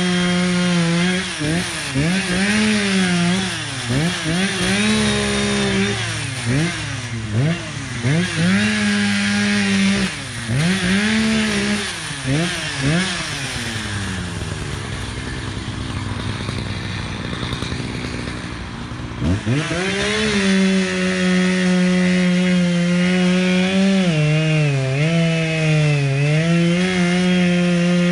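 Echo two-stroke chainsaw running at full throttle, its engine speed dropping and recovering again and again as the chain cuts wood. About two-thirds of the way in it falls back to idle for a few seconds, then revs up and holds at high speed, dragging down twice near the end.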